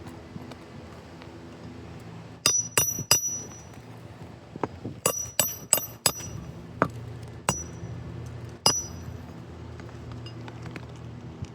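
Hammer striking a roof snake to drive roofing nails in under the overlapping shingles: sharp, ringing metal-on-metal strikes. Three come in quick succession about two and a half seconds in, four more around five to six seconds, then three single strikes, over a steady low hum.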